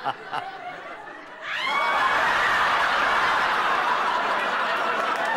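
A man chuckling in short bursts at the start. About one and a half seconds in, a studio audience breaks into loud, sustained laughter that carries on to the end.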